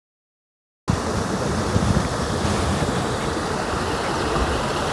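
Dead silence, then about a second in, wind buffeting the microphone starts suddenly: a steady rush of noise with uneven low gusts.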